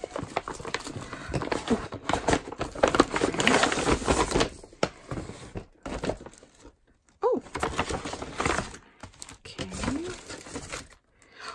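Plastic mailer bag and clear plastic envelope crinkling and rustling as they are pulled open and handled. The crinkling is densest for the first four or five seconds, then thins to scattered rustles and taps with short pauses.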